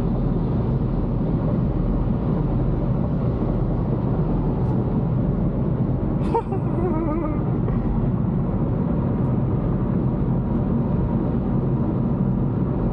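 Steady engine and road noise heard inside a car's cabin while it is driven at speed. There is one brief, short sound about six seconds in.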